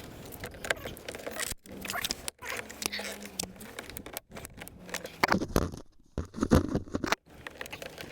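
Scraping, rattling and knocking of hands and a pry tool working the plastic door trim panel and its push-in clips on a Mercedes ML320 rear door, with louder knocks about five and six and a half seconds in.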